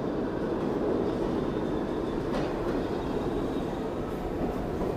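A Pullman Standard R46 subway train pulls into an underground station, a steady rumble of wheels on the rails, with one sharp click about two and a half seconds in.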